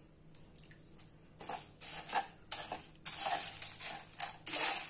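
A slotted metal spoon stirring and scraping whole spices (dried red chillies, coriander seeds, dal and curry leaves) as they roast on a flat tawa. It comes as a string of six or seven short rustling scrapes that start about a second and a half in.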